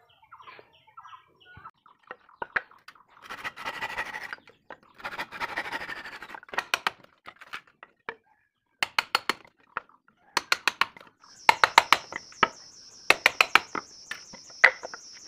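Quick runs of sharp wooden knocks as a chisel strikes ripped teak frame pieces to split them apart, with a couple of longer scraping noises between the runs. A steady high insect buzz comes in about two-thirds of the way through.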